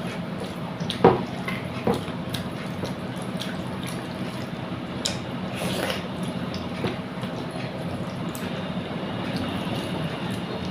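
Wet eating sounds of a person eating rice with fish curry: moist chewing and smacking with a few sharp clicks, the loudest about a second in. A steady low hum runs underneath.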